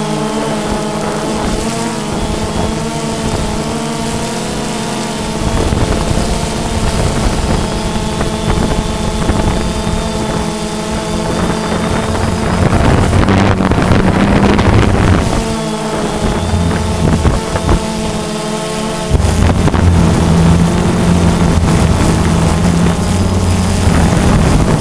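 Quadcopter's electric motors and propellers whining steadily, with wind rumbling on the microphone in three stretches, the first beginning about five seconds in.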